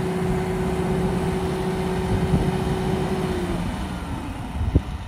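New Holland 5620 CRD tractor's common-rail diesel engine running under load while pulling a cultivator. The steady drone fades after about three and a half seconds, and a single thump comes near the end.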